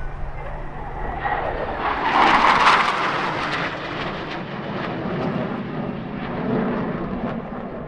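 Blue Angels F/A-18 Hornet jet noise passing by. It swells to its loudest about two and a half seconds in, then drops in pitch and fades to a lower rumble as the jet moves away.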